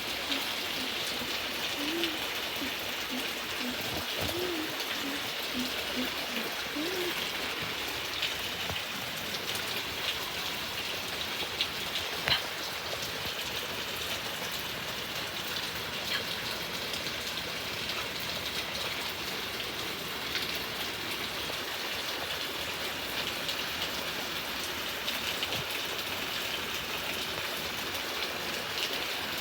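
Steady rain falling, with individual drops ticking sharply here and there; two louder drop hits come near the middle. In the first several seconds a few short, low calls rise and fall faintly behind the rain.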